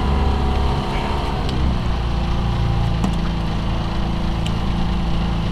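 Boat's outboard motor idling with a steady low hum; its pitch shifts slightly about one and a half seconds in.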